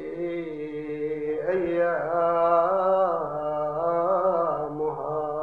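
A man's voice chanting Arabic lines in a drawn-out, ornamented melodic style, the chanted recitation of a Shia preacher (khatib), amplified through a hand microphone. He holds long notes, and a new phrase starts on a higher pitch about one and a half seconds in.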